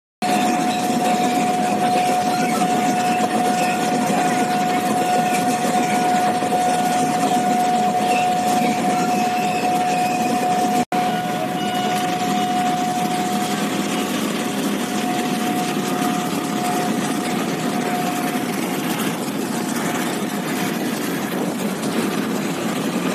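A passenger train runs through a level crossing, its rail noise mixed with idling motorbike engines, while a steady warning tone from the crossing signal sounds. The audio cuts out for an instant about eleven seconds in, the tone fades away a few seconds later, and motorbike engines then pull away.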